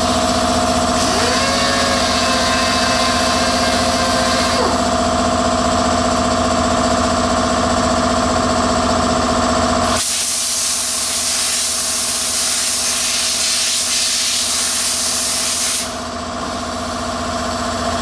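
A small handheld power tool running with a steady drone; a rising whine comes in about a second in and stops about four and a half seconds in. About ten seconds in, the drone gives way to a loud hiss of compressed air from an air blow gun, which eases off shortly before the end.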